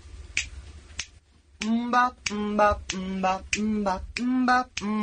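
A few finger snaps, then from about a second and a half in, an unaccompanied voice singing short, clipped syllables on one low note, about two a second.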